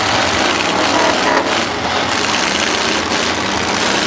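Several demolition derby cars' engines running and revving together under a dense, steady wash of noise.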